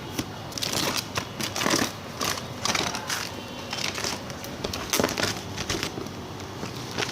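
Shipping packaging being opened by hand: irregular crinkling, crackling and rustling as the wrapping is pulled and crumpled.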